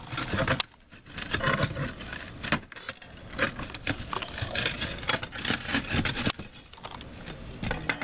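Concrete roof tiles scraping and clacking against each other and against a metal bar as a cracked tile is worked loose and lifted by hand: irregular knocks, clinks and scrapes with a couple of short pauses.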